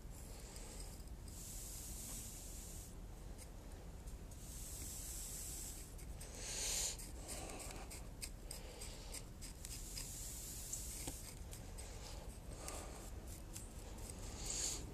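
Loose granular bonsai soil being poured into a pot and worked in around the roots: repeated faint hissing trickles of a second or two, with small scratches and clicks.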